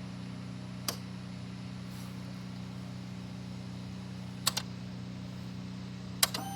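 A few sharp clicks over a steady low hum, then near the end the 2021 BMW G310R's electric fuel pump starts up with a steady whine as it primes, showing that the pump is working.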